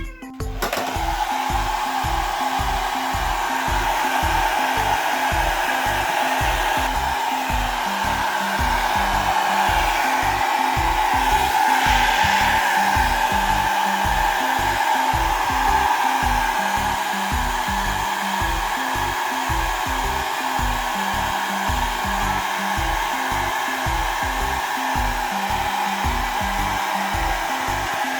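Hand-held hair dryer blowing steadily, switched on about half a second in. Background music with a steady beat plays underneath.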